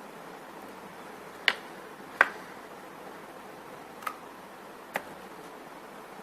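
Four sharp clicks of small hard parts knocking together as a soldering iron's handle is put back together, the first two louder.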